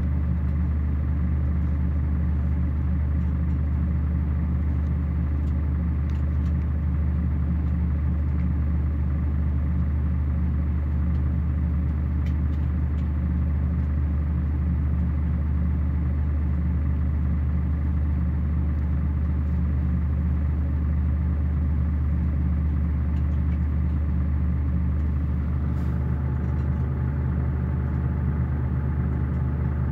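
Scania DC9 9-litre five-cylinder diesel in a Scania K114IB bus idling steadily, heard from inside the passenger cabin.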